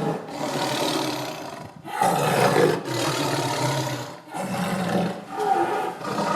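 Angry captive tiger roaring and growling in a run of long, rough roars, one after another with only brief breaks between them.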